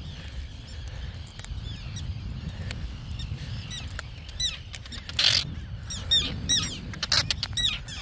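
Terns calling again and again in harsh alarm, warning off an intruder near their nests. The calls are scattered at first and come thick and fast from about halfway, with a brief rush of noise just past the middle, over a low wind rumble on the microphone.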